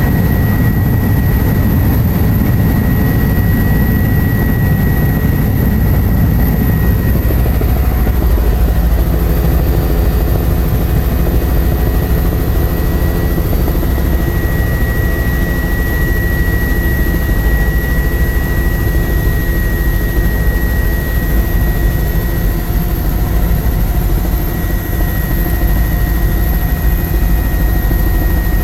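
Helicopter engine and rotors heard from inside the cabin: a loud, steady drone with a constant high whine above it.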